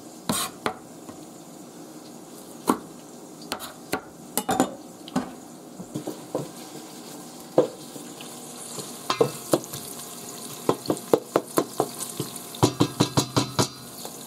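Chef's knife chopping spinach on a plastic cutting board: scattered knocks at first, then a fast run of chops, about five a second, in the last few seconds. Under it, the steady sizzle of onions sautéing in oil in a pot.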